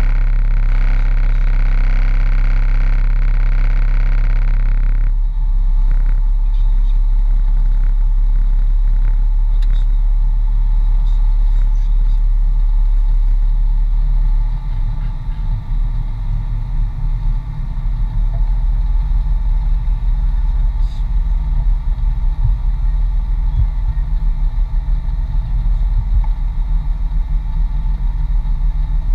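Mitsubishi Pajero off-road vehicle driving, a loud low engine and drivetrain rumble that turns choppier and uneven from about halfway through.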